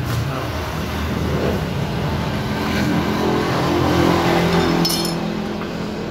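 A motor vehicle engine running steadily, swelling louder in the middle, with a brief clatter about five seconds in.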